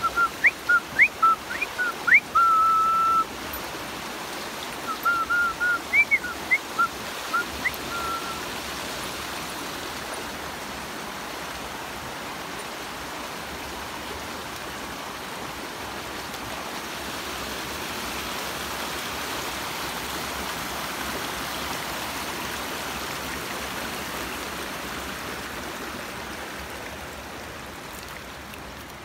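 Creek water rushing steadily over rocks. Over the first eight seconds, someone whistles a run of short, loud notes, some sliding upward, with one note held for about a second.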